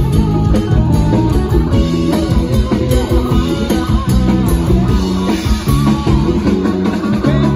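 Live rock band playing loud with guitar and drum kit, with no singing, picked up by a phone's microphone at a concert.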